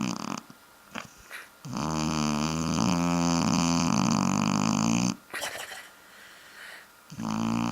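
Shar-Pei dog snoring in its sleep: one long, loud, steady-pitched snore of about three and a half seconds, then a pause with a few soft breaths, and the next snore beginning near the end.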